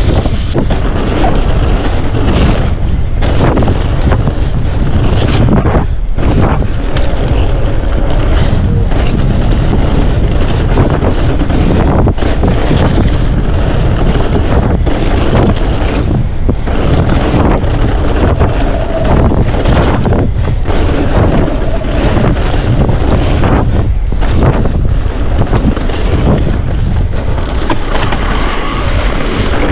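Wind buffeting the microphone of a camera on a mountain bike riding a wet trail, over a steady rumble of tyres on the ground, with frequent knocks and rattles from the bike on rough terrain.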